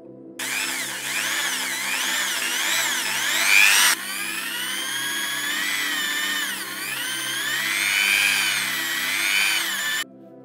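Electric drill with a twist bit boring out rusted steel screws in a hinge, the motor whine wavering up and down in pitch as the bit bites and eases. It starts about half a second in, changes abruptly near four seconds, and stops suddenly near the end, over background music.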